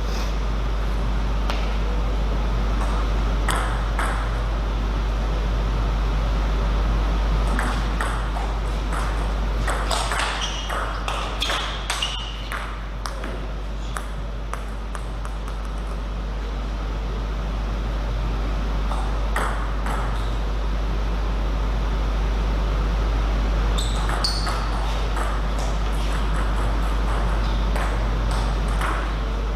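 Table tennis ball being struck back and forth, sharp clicks of ball on paddle and table in rallies, with a flurry of quick exchanges about a third of the way in and again near the end. A steady low hum runs underneath.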